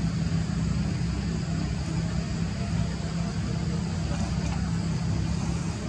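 A steady low engine hum, unchanging throughout.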